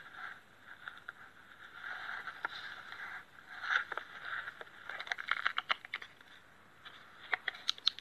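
Rustling and scraping of clothing against a body-worn camera, with clusters of short sharp clicks about five seconds in and again near the end.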